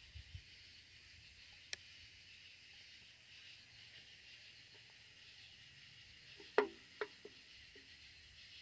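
Faint steady chorus of night insects, such as crickets. A sharp click comes near 2 seconds in, and two short knocks, the loudest sounds, come about two-thirds of the way through.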